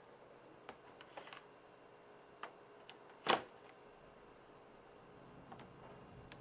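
A few scattered clicks and knocks, the loudest about three seconds in and another near the end, over a faint steady electrical hum.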